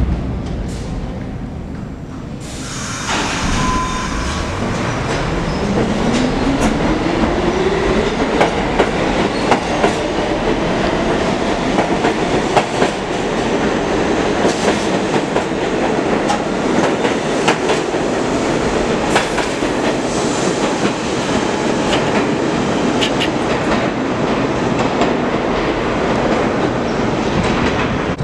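New York City subway train pulling out of the station. The traction motors' whine rises steadily in pitch as it accelerates, over loud rail noise with the clickety-clack of wheels crossing rail joints.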